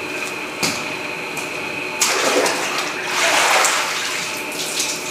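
Water running steadily, swelling a little past the middle, with a few light knocks.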